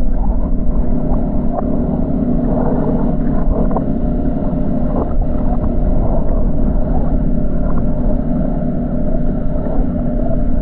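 Water and boat noise heard through a GoPro held underwater: a steady, muffled low rumble and hum with faint clicks, the high sounds cut off.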